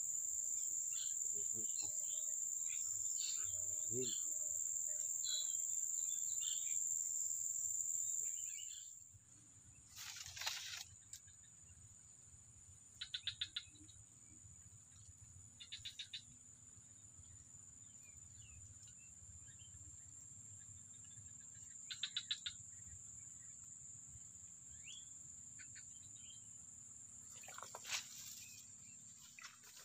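Steady high-pitched drone of insects in swamp vegetation, loud at first, then dropping suddenly to a fainter drone about nine seconds in. A few short rapid chirping trills come at intervals, and two brief whooshes are heard, one soon after the drop and one near the end.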